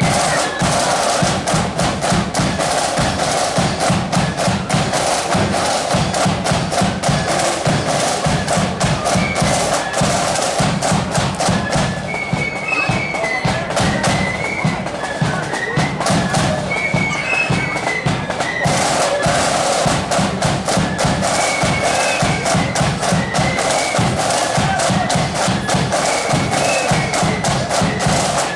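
Marching band playing a tune over a continuous, heavy drum beat.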